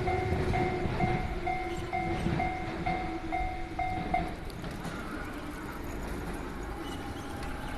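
Japanese railway level crossing's electronic warning bell ringing its two-tone chime about twice a second, stopping about four seconds in once the train has cleared. A passing train's rumble fades away underneath.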